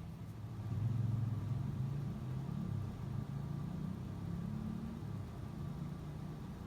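Low engine rumble of a passing vehicle, swelling about a second in and stepping up in pitch a few times.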